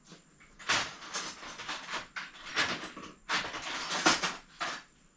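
Hand tools working on a bicycle's rear brake cable fitting, meant to tighten its 8 mm nut: a run of irregular scrapes and knocks from about a second in until near the end.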